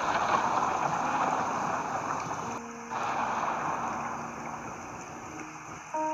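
Cooking oil trickling in a thin stream into an empty nonstick pot: a soft hiss that breaks briefly about two and a half seconds in and fades toward the end as the stream runs out. Faint background music underneath.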